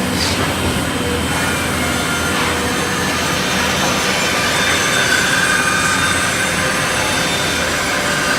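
CNC wood jigsaw cutting wood: a steady, dense sawing noise with a faint wavering whine that grows a little stronger midway.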